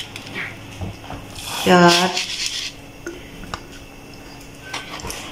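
A metal spoon clinks lightly a few times against a steel pan and sugar container as sugar is spooned into hot milk. A short burst of a woman's voice comes about two seconds in.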